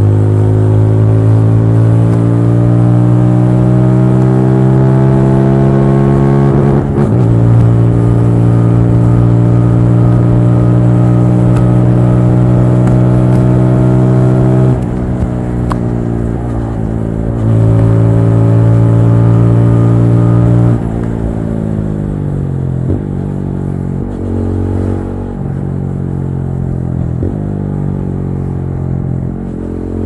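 TVS Apache RTR 200 4V's single-cylinder engine under way, climbing in pitch under throttle, with a brief dip for a gear change about seven seconds in. It then holds fairly steady, backs off and comes on again in the middle, and rolls off with falling revs through the last third before picking up again right at the end.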